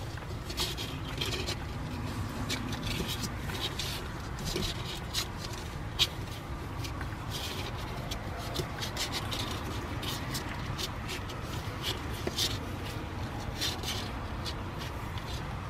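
Three-day-old Shiba Inu puppies nursing and squirming on cardboard: scattered short scratchy clicks and rustles, with one sharper click about six seconds in, over a low steady hum.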